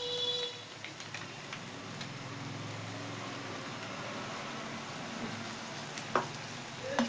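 Minced mutton with tomatoes frying in oil in a non-stick pan, a steady sizzle. About six seconds in a spoon stirs it, with one sharp clack against the pan.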